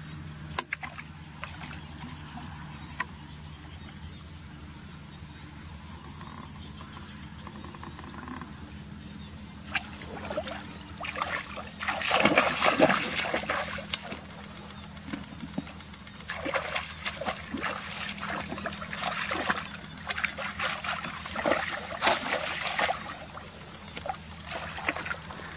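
Water splashing and sloshing in irregular bursts, starting about ten seconds in and loudest soon after, over a steady low hum; a few sharp clicks sound near the start.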